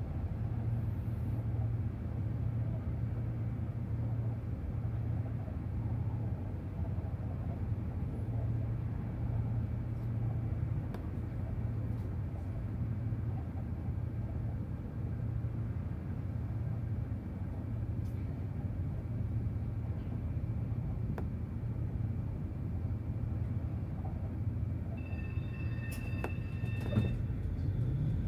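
Tram running along the track with a steady low rumble and a few faint clicks, and a brief high tone a few seconds before the end.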